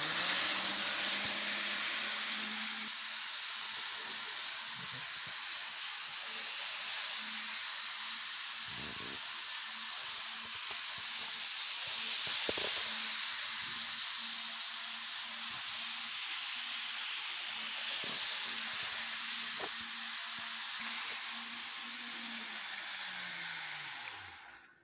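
HO-scale model diesel locomotive running around its track: a steady, high whirring hiss from the motor, gears and wheels, over a low motor hum that rises in pitch as power comes on and sinks as the train slows to a stop near the end, with a few light clicks.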